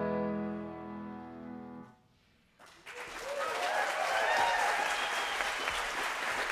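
The final chord of a violin, clarinet and piano trio, held and dying away, then after a brief silence the audience breaks into steady applause.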